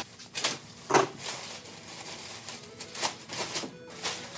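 Plastic packaging wrap crinkling and rustling as it is handled and pulled open, with several sharper crackles, the strongest about a second in.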